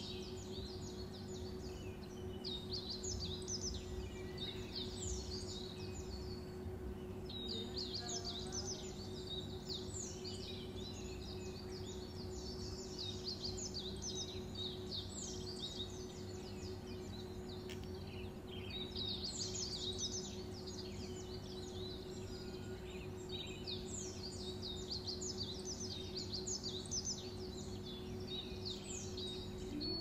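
Budgerigar chattering in clusters of quick high chirps and warbles, coming and going every few seconds, over a steady low hum.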